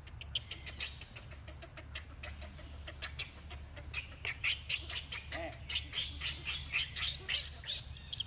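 Baby macaque screaming in a rapid series of short, high-pitched squeals, about four a second, coming louder and thicker from about halfway through: distress calls while its mother pins and handles it.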